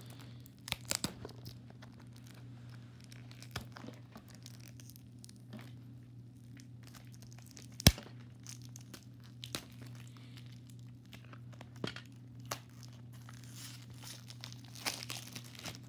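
A small cardboard toy box and its plastic wrapping being opened by hand: scattered crinkling, tearing and small clicks, with one sharp click about eight seconds in. A steady low hum runs underneath.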